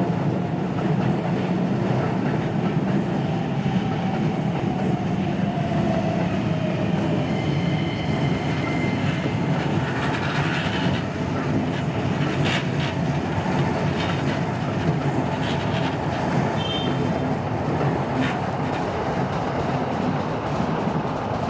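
Train running on rails: a steady rumble with occasional wheel clacks over rail joints and a faint whine.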